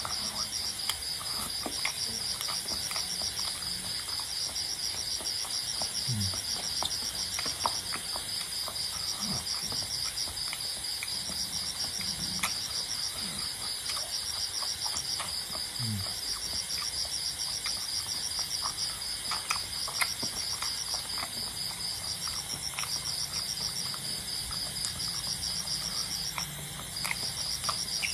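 Crickets chirping in a steady, fast pulse that briefly stops twice near the end, with small clicks and smacks of eating by hand and chewing.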